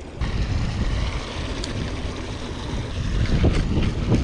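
Wind buffeting the microphone: a low rumbling rush that comes on suddenly just after the start and grows stronger near the end, with a few faint clicks.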